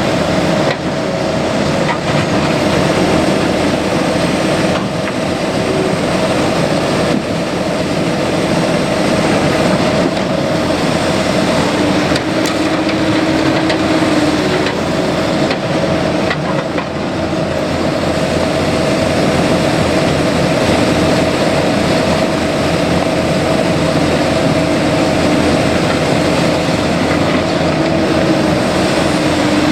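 Cat 308E mini excavator working: its diesel engine runs steadily under load with a steady whine over it, broken by a few sharp knocks.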